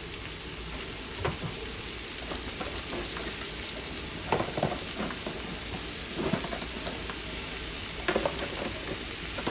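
Already-cooked chicken sautéing in hot oil in a pan: a steady sizzle, broken a few times by short clattering knocks of a utensil stirring it.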